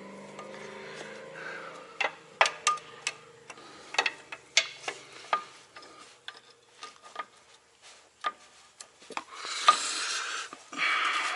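Metal clicks and taps of hand tools and vise grips working the return springs on drum brake shoes, with a rasping scrape about nine and a half seconds in and again near the end.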